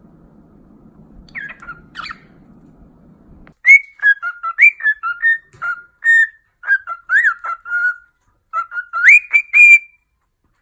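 A pet bird whistling a run of short, clear whistled notes that step and glide up and down, with a couple of faint whistles over a low hum before the louder run begins about three and a half seconds in.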